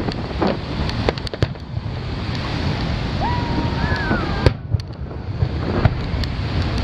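Aerial fireworks shells bursting with sharp bangs: several in quick succession in the first second and a half, then single bangs about four and a half and six seconds in. Underneath is a steady rushing noise of wind on the microphone.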